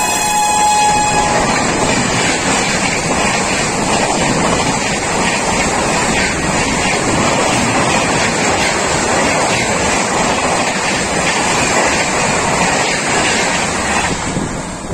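A high-speed electric passenger train passes close by at about 130 km/h, its LHB coaches making a loud continuous rush of wheels and air. The rush fades near the end as the last coach goes by. In the first second the locomotive's horn tails off, dropping in pitch as it passes.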